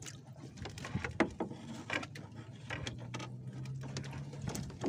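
Irregular clicks, knocks and rustling as a fishing net is handled against the side of a small boat, over a low steady hum that grows stronger about three seconds in.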